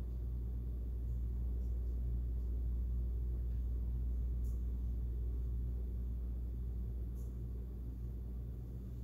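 Steady low background rumble and hum, with two faint brief ticks about four and a half and seven seconds in.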